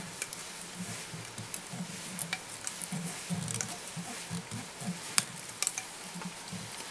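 Small irregular clicks and ticks of hands working at a fly-tying vise while copper mylar tinsel is wrapped onto a tube-fly body, with one sharper click a little after five seconds in.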